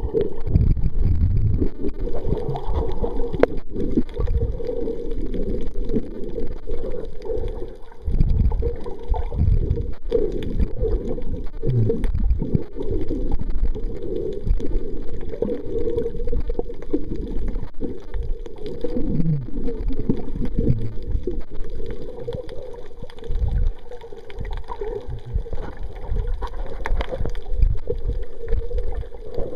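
Muffled underwater noise picked up by a submerged camera: a low, steady rushing and gurgling of moving water, with little above a low rumble.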